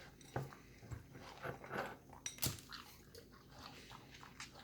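Boston terrier at its food, with scattered faint clicks and crunches, like kibble being chewed or claws tapping on the floor.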